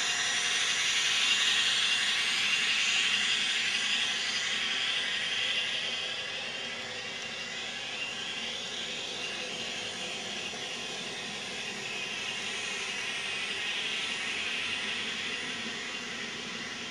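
N scale model passenger train of bilevel cars rolling along the track: a steady, hiss-like whirr of small wheels on rail and motor. It is louder for the first six seconds, then eases a little.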